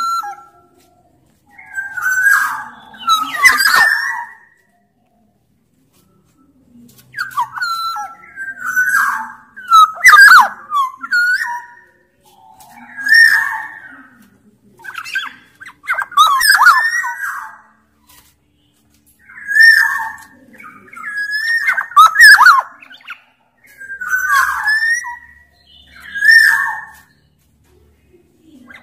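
Black-naped oriole (kepodang) singing energetically: short phrases of fluty whistles mixed with harsh scratchy notes, repeated every second or two, with a pause of about two seconds about a fifth of the way in.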